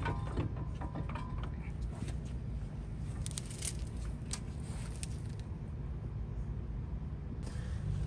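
Light metallic clicks, taps and scrapes as a front brake caliper is handled and seated over the rotor, over a steady low rumble.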